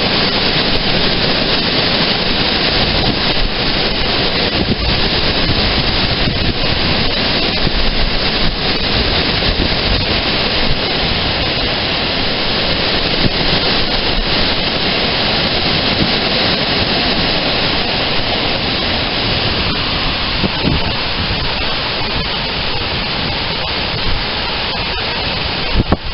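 Strong wind blowing hard against the microphone: a loud, steady rushing noise with small gusts.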